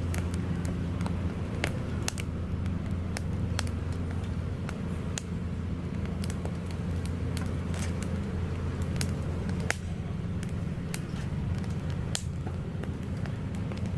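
Wood fire crackling in a Picogrill portable fire pit, with irregular sharp pops about two a second over a steady low hum.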